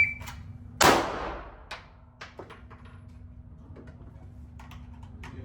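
A single pistol shot fired from the draw, about a second in, echoing in an indoor range; it comes about 1.3 s after the shot-timer's start beep. A few fainter clicks and clinks follow.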